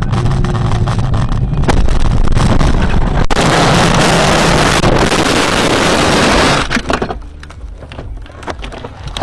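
Car collision recorded by a dashcam inside the car. Vehicle noise is broken by a sharp knock about three seconds in, followed by about three seconds of loud rushing noise that cuts off suddenly, then a few fainter knocks.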